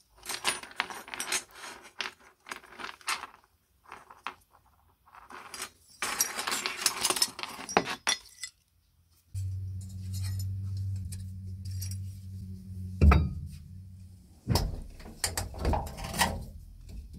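Small wire brush scrubbing rust off small steel parts of a double hole punch in short scratchy bursts. From about nine seconds in a steady low hum starts suddenly and runs for about five seconds, and near the end there are several sharp metal clicks and knocks from a toolbox latch.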